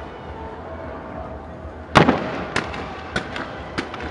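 Aerial fireworks display: one loud shell burst about halfway through, followed by four smaller, sharper cracks over the next two seconds.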